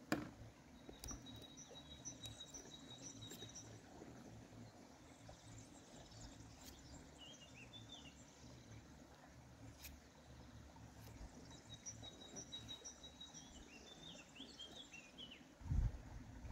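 Small birds singing faintly: short repeated high notes and quick twittering, in two spells. A couple of dull thumps come near the end.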